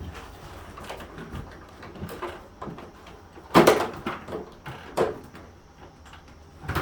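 A few knocks and clunks of hard objects being handled during a mini split installation, the loudest about three and a half seconds in, another about five seconds in and one more near the end.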